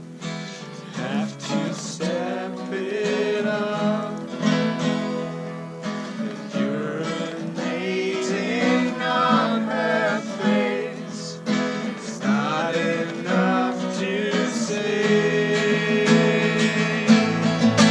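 Acoustic guitar strummed in steady chords, with a voice singing over it.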